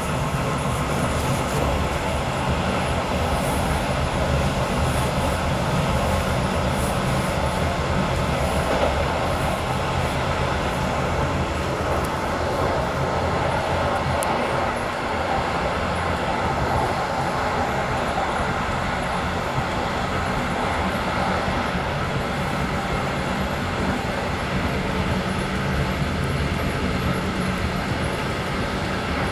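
Alex regional express train running along the line, its steady rolling noise heard from inside at the rear of the train, with a low steady hum underneath.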